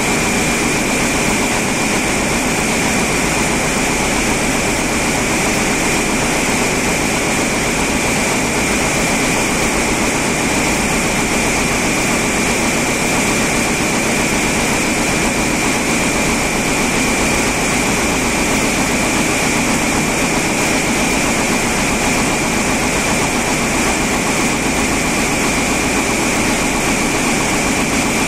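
Woven-label loom running at speed, a steady machine noise with a constant high whine on top.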